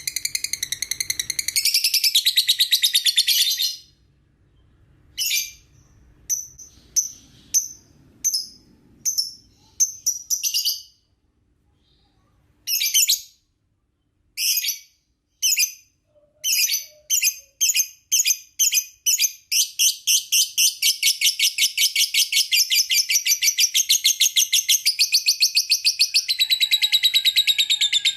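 Lovebird chattering in a rapid, high trill that breaks off after about four seconds. Separate short chirps follow, coming faster and closer together from about halfway through, until they run into a long continuous trill.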